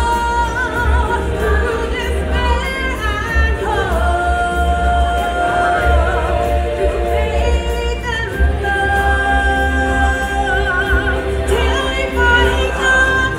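Stage-show music: singing voices holding long, slow notes that step from pitch to pitch, over instrumental backing with a steady deep bass.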